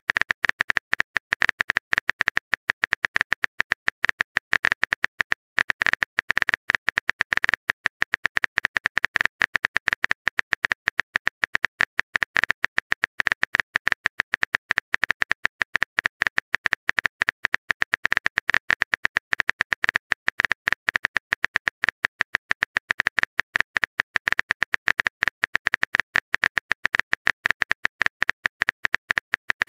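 Rapid, steady keyboard-typing click sound effect as a message is typed out letter by letter, with a few brief pauses.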